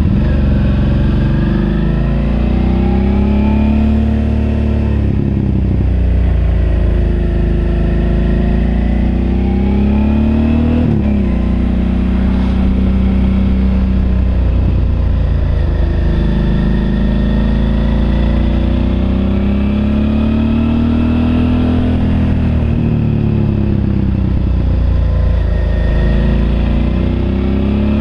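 Suzuki V-Strom DL650's V-twin engine pulling in low gears through a run of bends, its pitch rising and falling every few seconds as the throttle is opened and closed, with a sudden drop about eleven seconds in.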